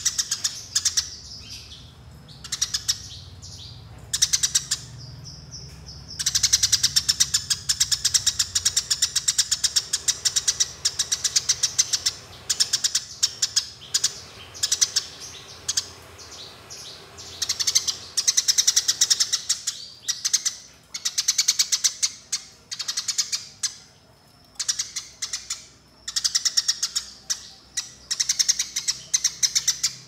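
Eurasian tree sparrow chirping in long, rolling runs of rapid, high, repeated chirps broken by short pauses: the fast 'fighting' (tarung) chirp that keepers record as training song.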